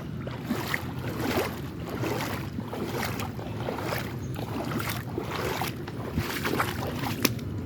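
Creek water splashing and sloshing in quick, irregular strokes.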